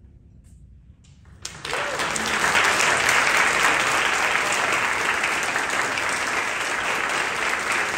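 Audience applause breaking out suddenly about a second and a half in after a moment of quiet, then steady clapping.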